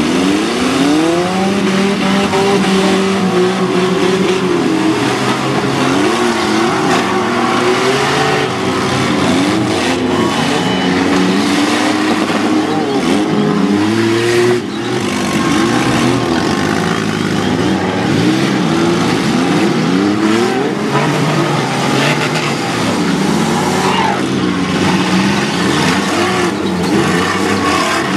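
Several small-car engines revving and racing at once, their pitches rising and falling over one another, as derby cars drive and ram each other, with a few sharp knocks of collisions.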